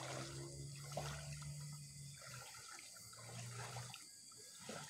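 Legs wading through shallow, muddy water: faint, soft sloshing and small splashes.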